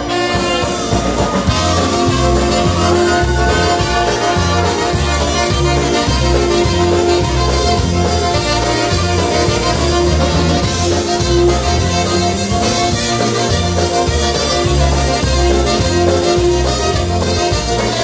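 A live polka band playing an instrumental passage, with the trumpet leading over accordion, concertina, saxophone, drums and a bouncing bass line that alternates between two notes, under long held notes.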